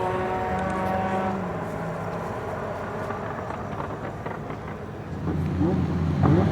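Sports car engine holding a steady note that ends about a second and a half in, then running quietly, then revving up near the end with the pitch rising.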